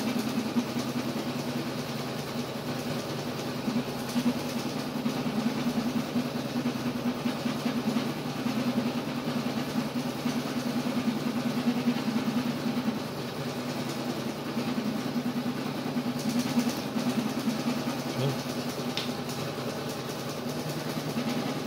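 A steady mechanical hum from a running machine, holding a few fixed low pitches.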